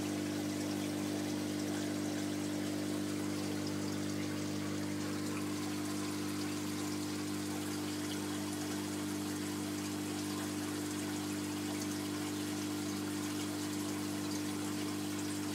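Aquarium filter running: a steady electric hum with water pouring and trickling.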